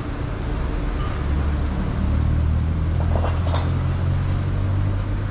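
A motor vehicle engine running close by in street traffic, a steady low hum that grows louder about two seconds in.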